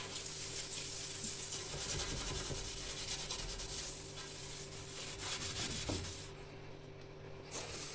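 Wet sponge rubbing across a fireplace's glass door, a scratchy swishing with the fireplace ash acting as a gentle abrasive; the rubbing eases off about six seconds in.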